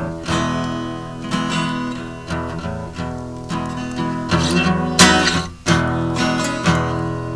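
Acoustic guitar strumming chords in an instrumental passage of a folk song, with a hard strum about five seconds in.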